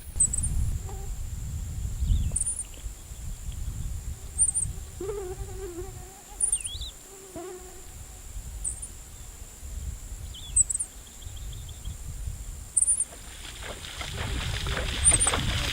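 Wild insect and bird chorus over flooded savanna: a steady high insect whine, with a short, very high chirp repeating about every two seconds and a few scattered other calls, over a low rumble. Near the end, water sloshing rises in.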